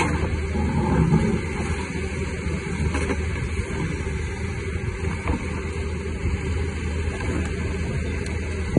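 Diesel engine of a Caterpillar hydraulic excavator running steadily while it knocks down a building wall, with a few faint knocks from the breaking masonry.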